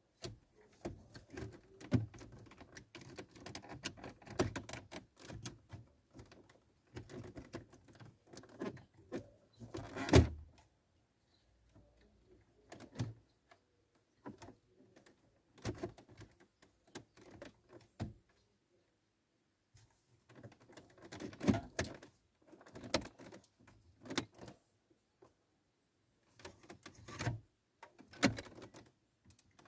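Hands working on a car's plastic dashboard trim and wiring: irregular clicks, knocks and rustles in bursts with short pauses between them, the loudest knock about ten seconds in.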